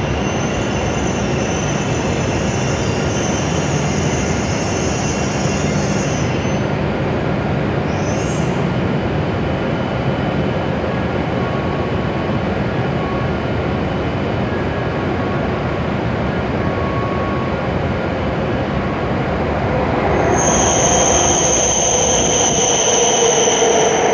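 A Hokuriku Shinkansen W7 series train running into the station: a steady rushing rumble throughout that grows louder about twenty seconds in, with a high steady squeal as the train brakes into the platform.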